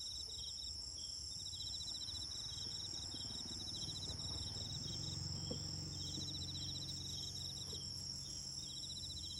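Insects chirping: repeated rapid trills about a second long, with short gaps between them, over a steady high-pitched insect whine.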